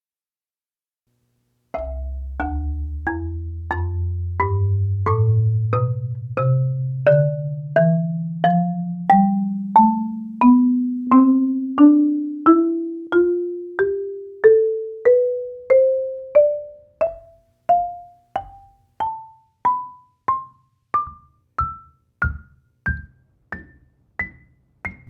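Marimba played one note at a time in a slow rising scale, from the low bass bars up to the top of the instrument, starting about two seconds in. The low notes ring on and overlap, while the higher notes are short and die away quickly. This is raw, unprocessed audio from microphones under the bars.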